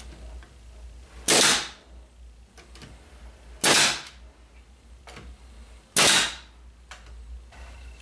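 Pneumatic nail gun firing three times, about two and a half seconds apart, each a sharp crack with a brief tail, driving nails into oak edge trim. Faint clicks of handling come in between.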